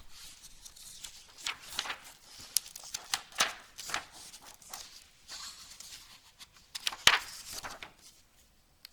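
Rustling and scraping of a picture book's paper pages being handled and turned close to the microphone, with one sharp click about seven seconds in.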